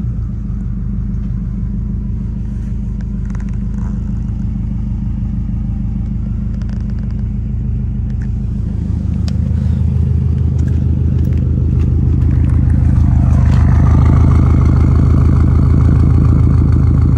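Subaru Forester's swapped-in turbocharged flat-four engine idling steadily just after startup, through a Tomei Expreme Ti titanium exhaust. At first it is heard from inside the cabin. In the last few seconds it grows louder and fuller close to the exhaust tip.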